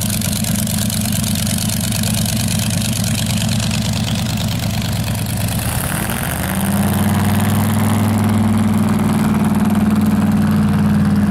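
Chevrolet 427 big-block V8 in a modified International Harvester W9 tractor, running at a steady low speed, then revving up about six seconds in and holding a higher, louder note.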